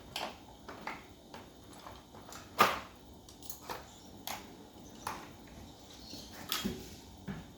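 Irregular light knocks and clicks of hands handling parts at the back of a fridge, with one sharper knock about two and a half seconds in.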